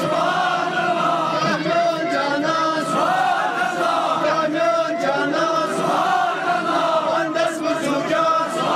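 A crowd of men chanting a Sufi devotional recitation together, many voices overlapping in a steady, drawn-out chant led from a text over a microphone.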